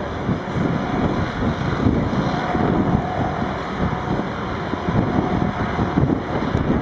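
Heavy diesel quarry machinery running steadily, with wind buffeting the microphone.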